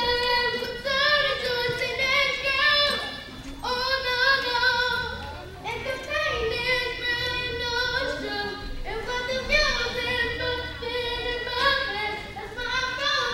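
A child singing a song solo, in phrases of long held notes.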